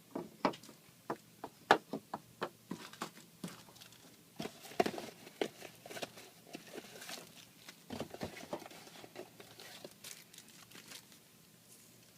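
Packaging being handled: crinkling plastic and rustling, with many small sharp clicks and knocks.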